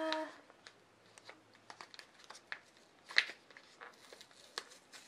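Paper gift wrapping rustling and crinkling in scattered light scrapes and taps as fingers work at a wrapped box, picking at the paper without tearing it; the sharpest tick comes about three seconds in.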